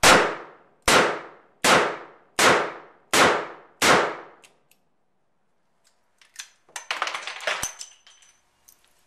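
Smith & Wesson Model 10 .38 Special revolver fired six times at a steady pace, about one shot every three-quarters of a second, each shot ringing off in echo. About two seconds later there is a quick run of metallic clicks and clinks as the cylinder is opened and the ejector rod slapped, dumping the six spent brass cases.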